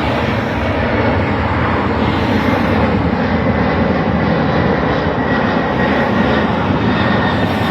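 Jet aircraft engines running loud and steady, a deep rumble and roar with a faint high whine that slowly falls in pitch.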